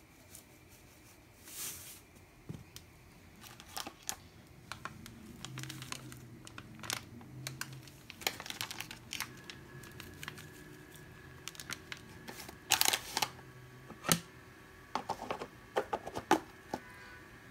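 Scattered clicks, light taps and crinkles of hands, a spice container and raw tilapia pieces in a stainless steel bowl while the fish is seasoned with salt and turmeric. A brief cluster of louder clicks comes near the end.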